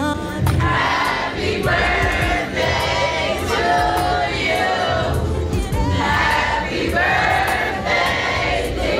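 Many people singing together, with crowd noise and a steady run of sharp claps or clicks under the voices.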